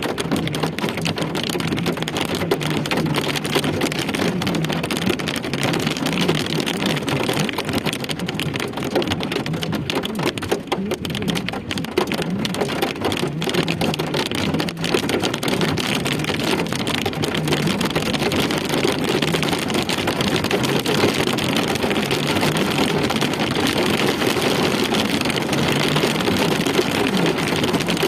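Steady rain falling, a dense hiss of drops splashing on hard surfaces.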